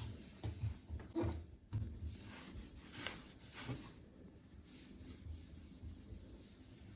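Rubbing and wiping strokes with soft handling knocks as a washing machine is cleaned by hand.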